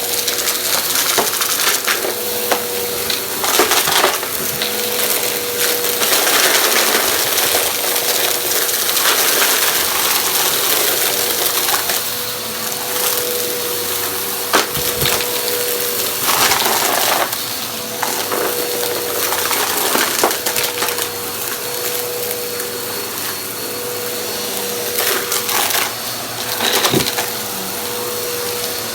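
Vacuum cleaner running with a steady motor whine while sucking up crunchy debris that crackles and rattles irregularly through it.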